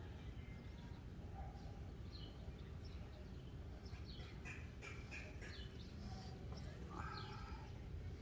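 Scattered short bird chirps, clustered from about four seconds in and again near seven seconds, over a faint steady low rumble of background noise.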